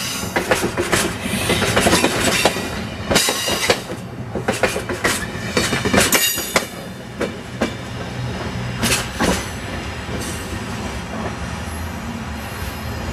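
Amtrak passenger train's stainless-steel cars passing close by, wheels clacking over rail joints over a rushing noise. The clacks thin out after about nine seconds as the last car pulls away, leaving a steady low rumble.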